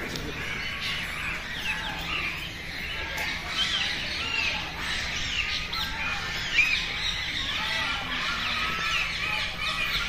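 Many birds chirping and squawking together, a dense chorus of short overlapping calls that rise and fall in pitch.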